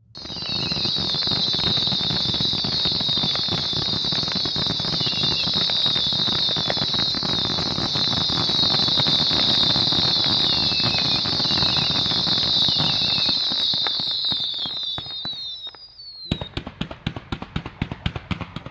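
Two fireworks fountains burn with a loud, shrill whistle and dense crackling for about fifteen seconds. The whistle slides down in pitch and cuts off suddenly. Then a fan cake of red comets begins firing a quick series of shots, several a second.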